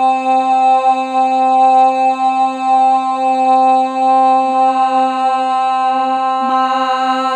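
A voice toning: one long sung note held at a steady pitch, with a brief wobble near the end.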